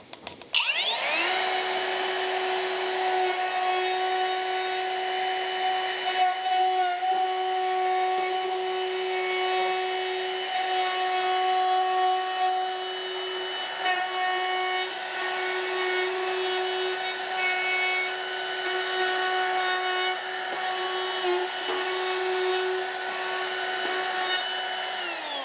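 Trend cordless trim router with a small roundover bit spinning up about half a second in, then running as a steady high whine while it routs the square edges off the foot of a 2x4 pine leg, the pitch dipping slightly now and then as the bit bites into the wood. It winds down at the very end.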